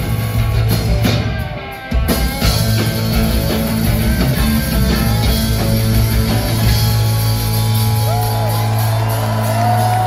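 A live rock band playing loud: bass guitar, electric guitar and drums, with sung vocals. The sound drops away briefly a little over a second in, and a long held note sounds near the end.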